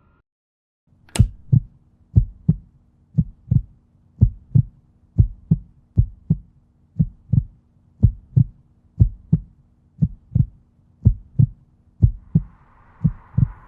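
Heartbeat sound effect: paired lub-dub thumps, deep and even, repeating about once a second over a steady low hum.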